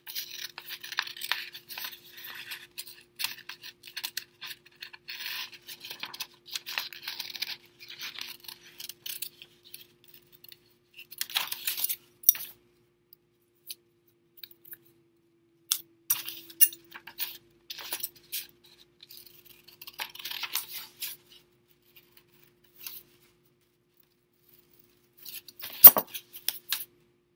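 Scissors snipping through construction paper in bouts of short, crisp cuts, with the paper rustling and pauses between bouts. A single sharp clack near the end is the loudest sound.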